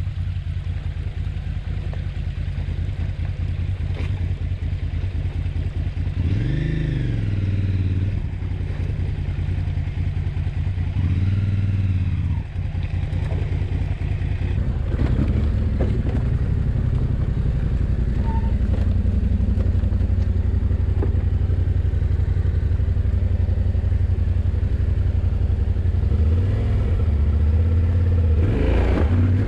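Adventure motorcycle engine running at low revs on a rocky dirt trail, with the revs rising and falling briefly about six seconds in and again around eleven seconds, then a steadier run with short rises near the end. A few sharp knocks of stones and tyres on rock.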